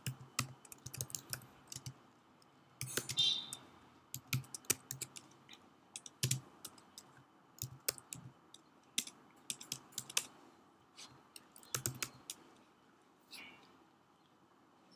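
Typing on a computer keyboard: irregular runs of key clicks that trail off near the end.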